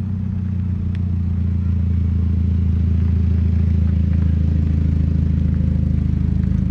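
1965 Chevy C10 pickup's engine running as the truck rolls up close, a steady low rumble that grows louder over the first couple of seconds and then holds even.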